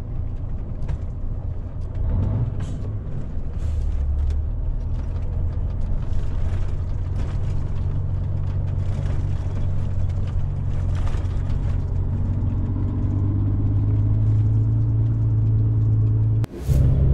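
Car engine and road noise heard from inside the cabin while driving, a steady low drone that grows louder toward the end and breaks off abruptly just before the end.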